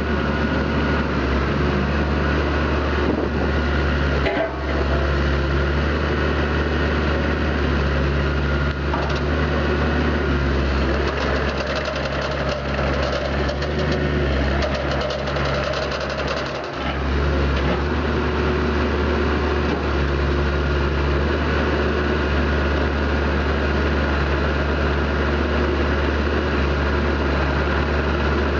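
Diesel engine of a Kubota KX251 Alpha midi excavator running steadily, with two brief dips in level, about four and a half seconds in and again near seventeen seconds.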